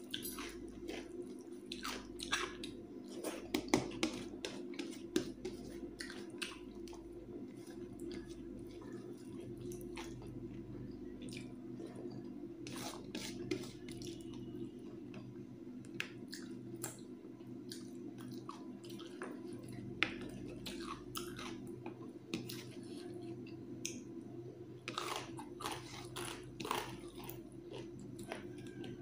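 Eating rice and thin chicken curry by hand from a steel plate: fingers squishing and mixing the wet rice, and chewing with wet mouth clicks at irregular moments.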